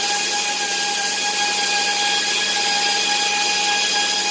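Handheld power tool motor running continuously with a steady high whine.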